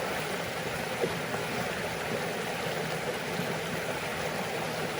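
Jungle river flowing, a steady rush of water, the river running full after rain. A brief click about a second in.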